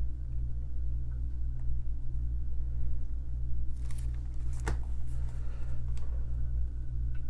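A steady low hum, with a few brief rustles and one sharp tap about four and a half seconds in as a small thin-paper Bible is shifted and its page pressed flat by hand.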